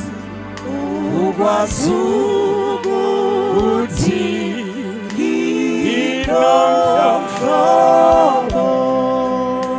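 Gospel praise and worship song sung by several voices in harmony, holding long chords with vibrato.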